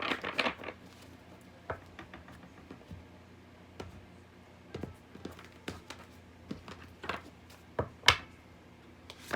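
Tarot cards being handled: a brief rustle of shuffling at the start, then scattered soft taps and flicks of cards being drawn and laid down, with one sharper snap of a card about eight seconds in.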